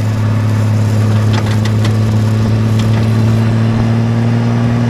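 2002 Honda Gold Wing's flat-six engine and exhaust running at a steady cruise, heard from just behind the exhaust tips, with road noise underneath and a few light clicks about a second and a half in.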